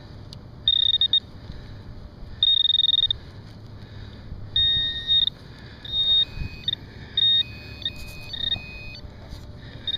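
Handheld metal-detecting pinpointer sounding a string of irregular high-pitched beeps of uneven length, a few of them at a slightly lower pitch, as it is held close to a coin in the dig hole; the owner thinks it is overloading near the target.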